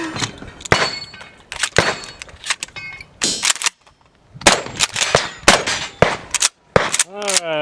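Mossberg 590 pump-action shotgun firing in a quick string at steel targets, each hit followed by a metallic clang and ringing from the steel plates.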